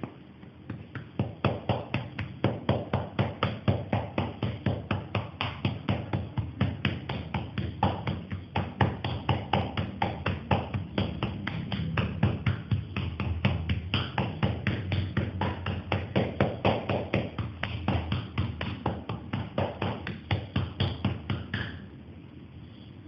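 Rapid, even patting of a hand on a child's shoulders and back, about four pats a second for some twenty seconds, stopping suddenly near the end. The patting is given as home therapy to ease the child's cough.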